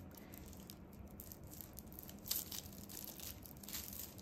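Faint crinkling and rustling of polyethylene raffia tape (Suzuran tape) as a crochet hook pulls it through stitches, with a slightly louder crackle about two seconds in.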